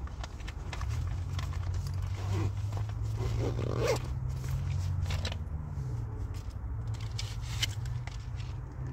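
Hands rummaging in a fabric makeup bag: rustling, with small clicks and scrapes of items being moved, over a steady low hum.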